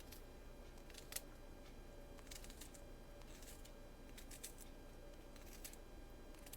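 Faint scattered clicks and scrapes of kitchen utensils, with one sharper click about a second in, while garlic is minced and added to the soup.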